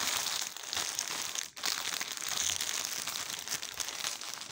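Plastic packaging crinkling as hands open a silver poly mailer and handle the clear plastic bag inside, a continuous crackle with a brief dip about a second and a half in.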